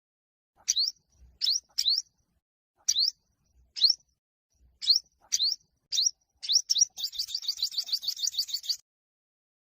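Olive-backed (yellow-bellied) sunbird giving its fighting song: about ten short, shrill upward-sweeping notes at uneven intervals, then near the end a rapid trill of the same note for about two seconds that stops abruptly.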